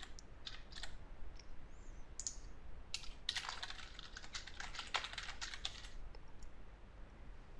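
Typing on a computer keyboard: scattered keystrokes at first, then a fast run of keys for about three seconds that stops around six seconds in.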